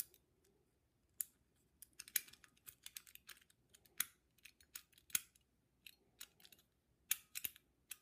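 Light, irregular metallic clicks and rattles from an old, worn Master Lock 175 brass combination padlock being worked in the hands, its dials turned and its shackle handled. The clicks come singly and in small clusters, a few a second, with a sharper pair near the end.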